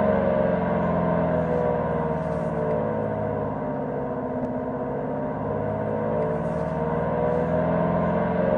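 A dense, droning alarm tone with many pitches sounding together, as in an emergency-alert broadcast. The whole chord slides slowly down in pitch to about midway, then back up, dipping slightly in loudness at the low point.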